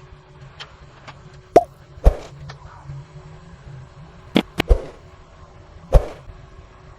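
Sharp clicks and taps of small repair tools on the phone and workbench during a screen replacement, about six in all, in two close groups, over a steady low hum.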